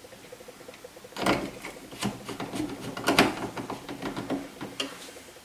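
Handling clatter: a run of sharp clicks, knocks and scrapes of parts being worked by hand, starting about a second in and dying away near the end.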